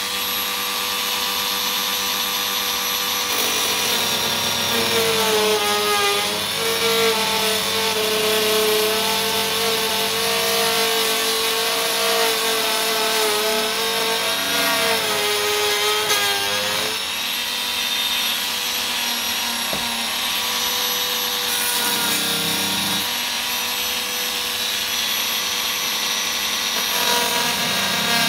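Dremel rotary tool with a cut-off disc cutting through an acrylic aircraft canopy. It makes a continuous high whine whose pitch wavers up and down as the disc is fed along the cut line.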